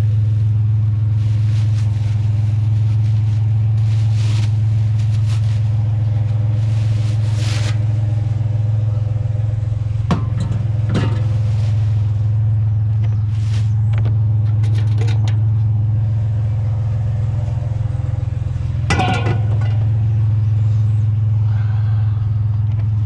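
Truck engine running steadily at an even, low hum, with a few brief knocks and clatters.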